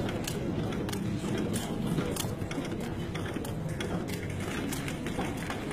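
A card vending machine's mechanism running, with irregular clicks over a low hum.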